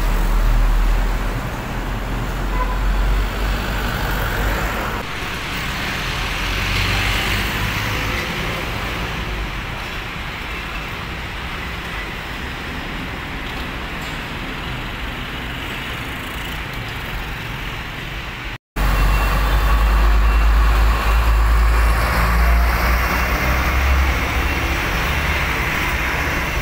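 Heavy road traffic with large trucks passing close by: a steady low engine rumble over tyre and traffic noise. The sound cuts out for an instant about two-thirds of the way through and returns with a louder low rumble.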